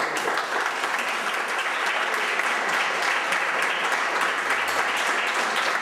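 Audience applauding, a steady clapping that continues throughout.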